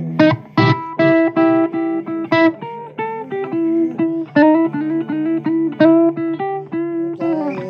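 Guitar playing an instrumental blues passage with no vocals: a run of picked single notes and short phrases over a held lower note, some of the notes bent in pitch.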